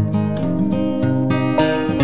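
Background music, its notes changing about three times a second.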